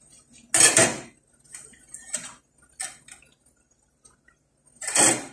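Metal clatter around a frying pan on a gas stove: two loud scraping knocks, about half a second in and near the end, with lighter knocks between. Faint sizzling of oil runs underneath as twisted dough sticks deep-fry.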